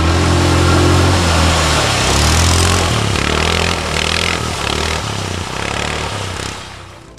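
A quad bike's engine revs up and down as it is driven through a deep mud hole, with water and mud splashing around it. The sound grows quieter over the second half and fades out near the end.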